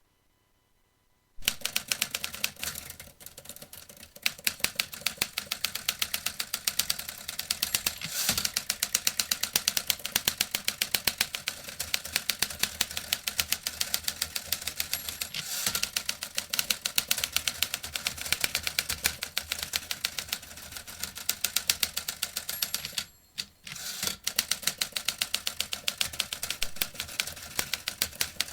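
Vintage typewriter being typed on: a fast, steady run of key strikes that starts about a second and a half in, with a short pause near the end before the typing picks up again.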